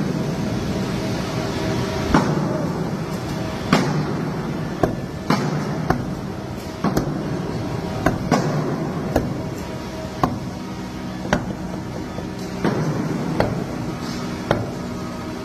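Hammer blows on a large wooden wine barrel, struck irregularly about once a second, as a cooper works the barrel during assembly.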